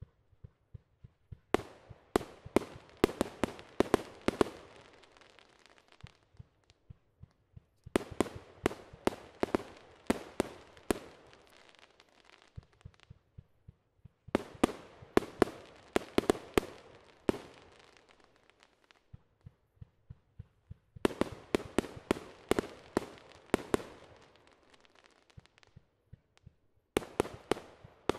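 Fireworks cake firing in volleys: strings of sharp bangs, several a second, each string lasting three to four seconds with short pauses between, five strings in all.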